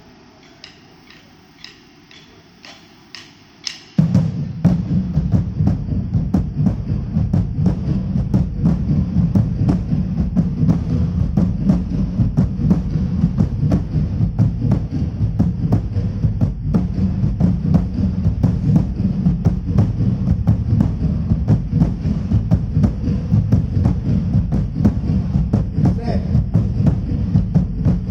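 Music from a large PA sound system during a sound check. A few soft ticks come first, then about four seconds in the full track comes in suddenly, loud and bass-heavy with fast, steady percussion.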